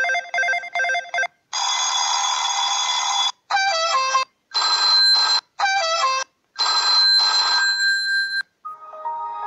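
A string of telephone-ring and ringtone sound effects played back one after another, about half a dozen short clips of a second or two each with brief gaps between. The first rings in rapid repeated pulses; several later ones are short stepped tunes falling in pitch.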